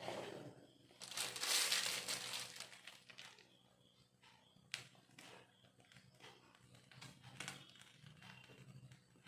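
Plastic piping bag crinkling as it is handled and squeezed, loudest for a couple of seconds about a second in, with a sharp click near the middle and softer crinkles after.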